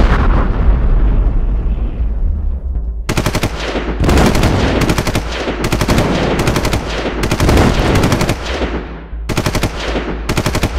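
A loud blast at the start rumbles away over a couple of seconds. Then come long, rapid bursts of light machine-gun fire with short breaks between them.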